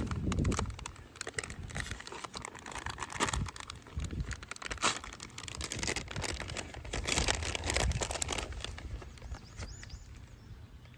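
Plastic bag of shredded cheese crinkling and tearing as it is opened and handled, in a run of irregular rustles and clicks.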